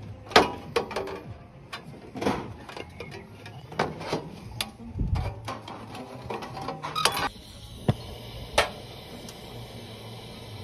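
Hand tin snips cutting sheet metal: a string of sharp snips and crunches. About seven seconds in, these give way to the steady hiss of a gas soldering torch.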